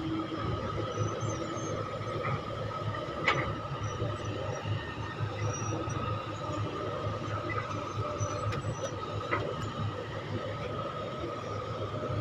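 Mark 5 hydraulic excavator running steadily under load while digging and loading a dump truck: a low engine rumble with a constant whine over it. One sharp knock comes about three seconds in, with a few lighter clicks later.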